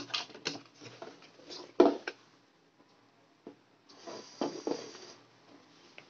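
Hands handling a DVR's open sheet-metal chassis and the hard drive fitted in it. A run of knocks and clicks comes first, the loudest a little under two seconds in. About four seconds in there is a second of scraping and rattling as the unit is tipped over.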